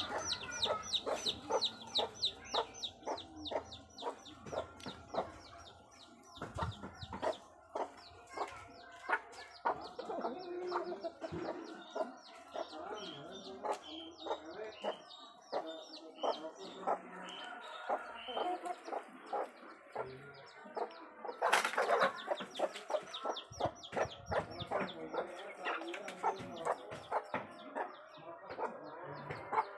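Chickens clucking, with rapid high peeping through much of it. About two-thirds of the way through there is a sudden loud rush of noise lasting under a second.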